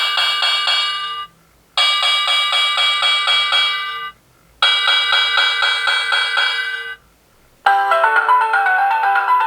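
Rhythm 8RZ220SR01 alarm clock's electronic alarm sounding a rapidly pulsing bell-like ring in three bursts of about two and a half seconds, with short pauses between them. Near the end it switches to a different alarm sound, a short electronic melody.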